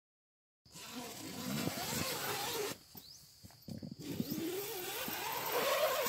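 Outdoor morning ambience: a steady hiss with faint wavering calls and a few short chirps. It starts after a moment of silence and drops out for about a second midway.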